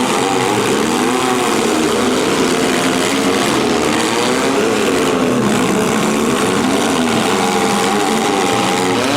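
Several compact-car engines running and revving at once, their pitches rising and falling over one another.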